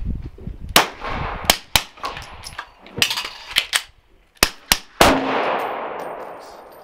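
A string of about eight suppressed 9mm pistol shots fired in quick, uneven succession from an H&K VP9 fitted with a SilencerCo Hybrid rifle suppressor and 9mm end cap, the last shot followed by a long fading echo.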